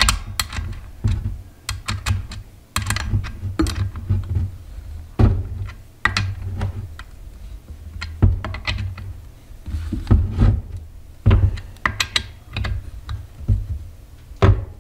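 Irregular clicks and knocks of hands and a wrench on a chainsaw's plastic clutch cover and bar as the bar nuts are tightened during assembly, over a low handling rumble.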